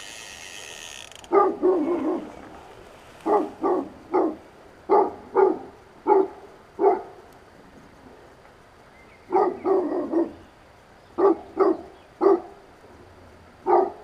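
A dog barking repeatedly, in short groups of one to three barks separated by pauses.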